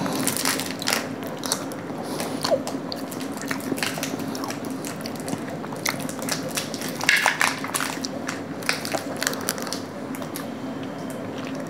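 Eating sounds: forks clicking and scraping on plates as soft cream pastries are cut, and chewing of the bites, many short irregular clicks. A steady low hum runs underneath.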